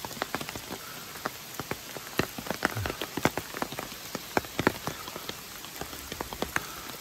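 Rain falling in woodland: a steady hiss with many sharp drops striking close by at irregular moments.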